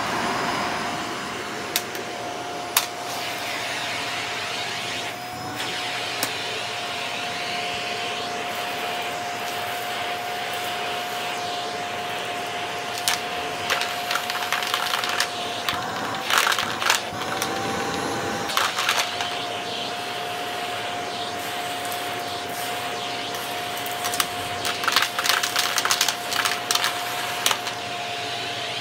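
Shark vacuum cleaner switching on and running on carpet with a steady whine that rises briefly in pitch about two-thirds of the way through. Bursts of crackling clicks come in the middle and again near the end.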